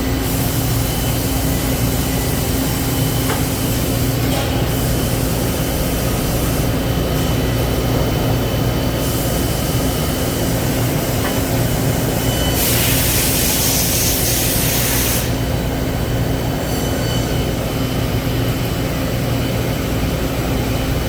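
Citizen K16E CNC Swiss-type lathe running a machining cycle dry, without coolant: a steady machine hum with a couple of faint clicks. About thirteen seconds in, a loud hiss lasts a couple of seconds.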